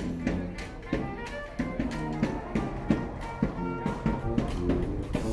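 A small street band playing live: trumpet and saxophone carrying the tune over snare drum and clashing hand cymbals, with sharp drum and cymbal hits.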